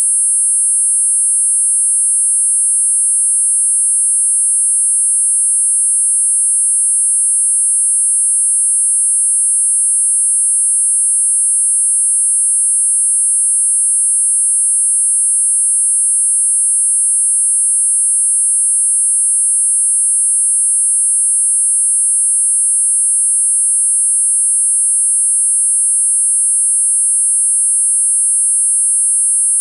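Four electronic high-pitched tones at 8.5, 9, 10 and 10.5 kHz sounding together as one steady, unchanging cluster, a tinnitus masker.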